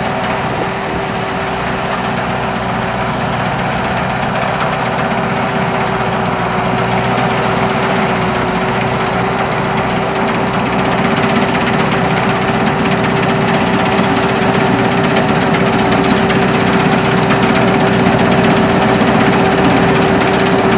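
Sakpattana SS-300 Black Bird combine harvester running, its five-cylinder 170 hp engine and machinery giving a steady drone with a constant hum and a thin high whine, growing slightly louder.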